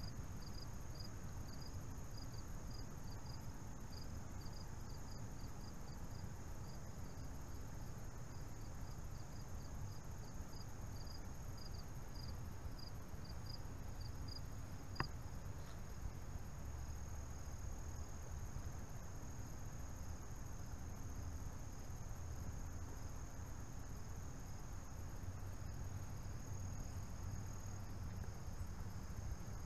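Insects singing: a steady high trill with a chirping insect, two or three chirps a second, that stops about halfway through. A low rumble runs underneath.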